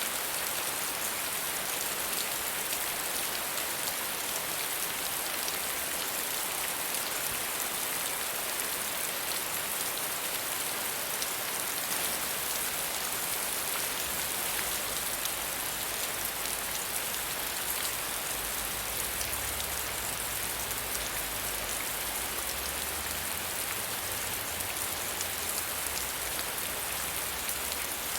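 Soft, steady rain falling, an even hiss of many small drops on a surface. A faint low rumble joins underneath about halfway through.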